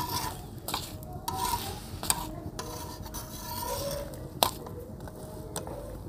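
Metal spatula scraping and tapping on an iron tawa as parathas are pressed and turned, with a few sharp clicks of metal on metal over the faint sizzle of frying in ghee.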